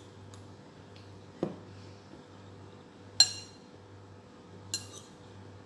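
A spoon clinking against a bowl while eating: a soft knock about a second and a half in, then two sharp ringing clinks, the first the louder, over a low steady hum.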